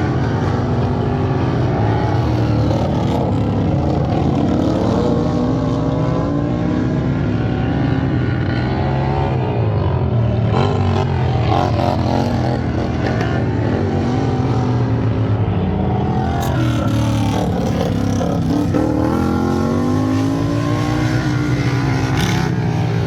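Several racing lawn tractor engines running hard together, their pitches rising and falling as they rev up and back off.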